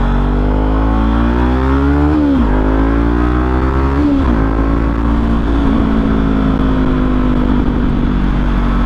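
Motorcycle engine accelerating through the gears. Its pitch climbs and drops at an upshift about two seconds in, climbs again and drops at a second upshift about four seconds in, then holds steady at cruising speed.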